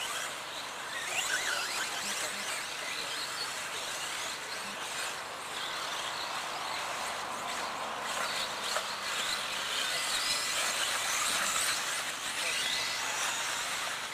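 Electric brushless-motored 1/10-scale RC off-road buggies racing, their motors whining up and down in pitch as they speed up and slow down.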